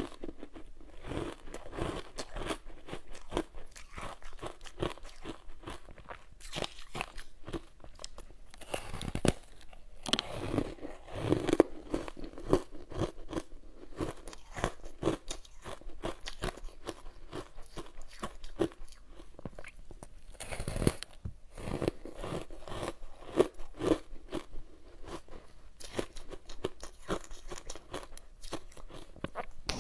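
Ice coated in matcha powder being bitten and chewed close to the microphone: a dense run of crisp crunches, with louder bites now and then.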